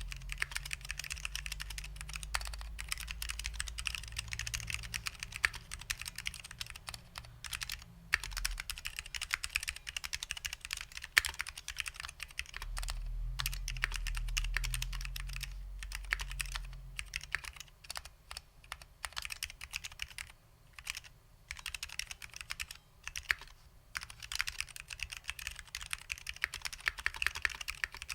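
Typing on a custom keyboard with lubed SKCL Green Alps switches and vintage doubleshot ABS keycaps: a fast, steady run of keystrokes that thins to scattered taps for a few seconds past the middle, then picks up again.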